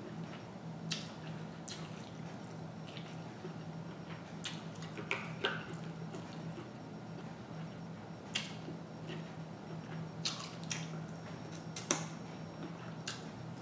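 Close-up eating sounds of a seafood boil with king crab: scattered sharp wet clicks and smacks from chewing, and from handling crab shell and meat by hand. A faint low steady hum lies underneath.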